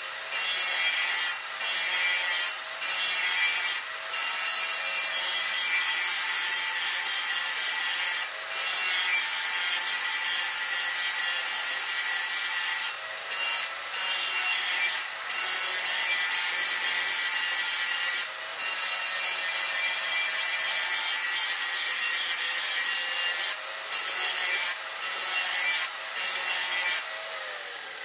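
A grinding wheel on a power grinder sharpening the steel blade of a 21-inch Murray lawn mower: a steady harsh grinding hiss over the grinder motor's whine, broken by brief gaps every few seconds as the wheel comes off the blade. Near the end the grinding stops.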